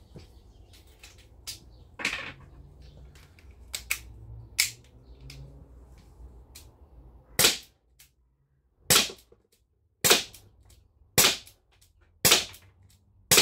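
Air pistol firing six shots about a second apart, each a sharp crack, after a few quieter clicks and knocks of handling.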